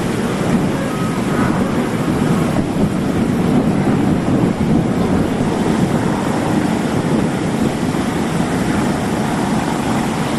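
Steady rumble of a fireboat's engine and pump running alongside, mixed with the rushing hiss of fire-hose water spraying onto the burnt duck boat.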